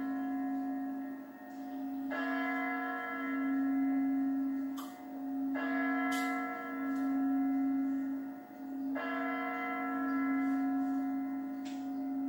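Kremlin chimes striking midnight on New Year's Eve: a deep clock bell struck about every three and a half seconds, three strokes in all, each ringing on into the next over a steady hum. A few faint clicks, like glasses or cutlery, sound between the strokes.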